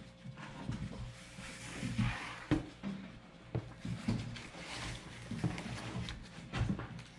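Packaging being handled during an unboxing: irregular rustling with scattered knocks and clicks.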